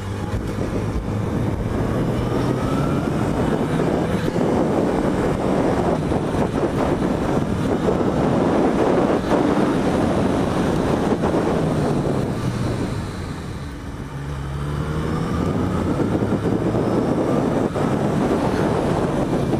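Yamaha XJ6 inline-four motorcycle engine running under way, its pitch rising and falling with the throttle; it eases off about two-thirds through, then picks up again. Wind rushes over the helmet camera's microphone.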